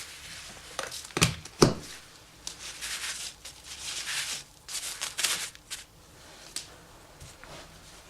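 Handling noises: two sharp knocks about a second in, then several short bursts of rustling or scraping, and a single click later on.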